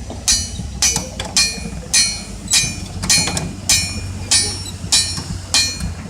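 Blacksmith's hammer striking metal on an anvil in a steady rhythm: about ten ringing blows, a little under two a second.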